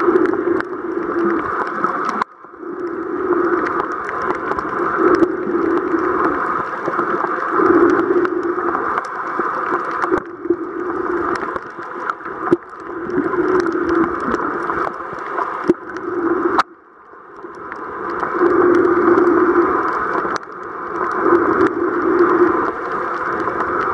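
Muffled underwater noise picked up by a camera filming below the surface: a continuous rushing that swells and fades, cutting out abruptly twice, about two seconds in and again about seventeen seconds in, before building back up.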